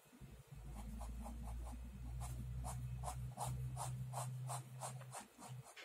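A pen scratching across paper in short repeated strokes, about four a second, as lines are sketched, over a low steady hum.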